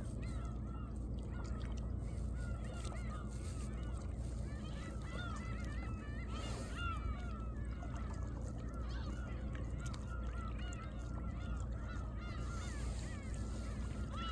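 A large flock of birds calling constantly, many short honking calls overlapping several times a second, over the low steady wash of waves lapping among seaside rocks.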